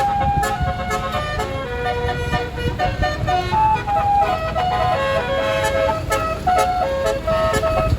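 Tour bus's telolet basuri multi-trumpet musical horn playing a tune, one held note after another, over a low rumble.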